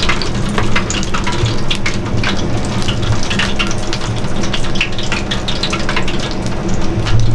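Freshly deep-fried chicken karaage sizzling on a wire rack, the hot oil crackling with scattered sharp pops over a steady low hum.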